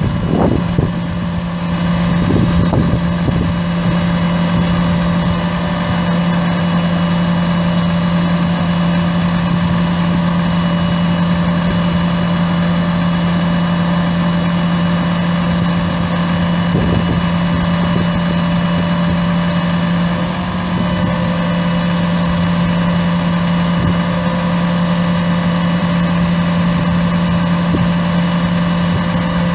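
Volvo VE7 6.7-litre inline-six turbo diesel idling steadily with an even hum. About twenty seconds in the sound dips briefly and settles again at a slightly different tone.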